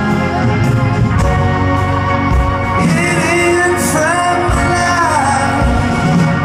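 Live rock band playing a slow song, heard from the audience in a concert hall: acoustic guitar and drums under a sung melody that bends and glides from about three seconds in.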